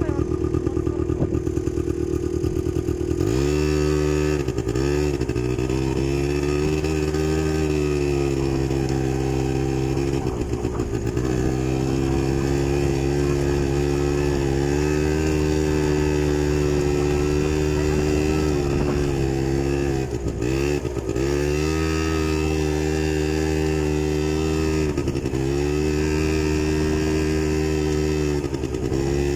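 Small off-road vehicle's engine running under way at a steady pitch. Its note dips briefly about five times as the throttle is eased and reopened.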